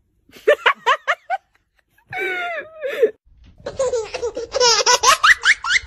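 A person laughing in high-pitched bursts: a quick run of short giggles, then hard, continuous laughter from a little past halfway.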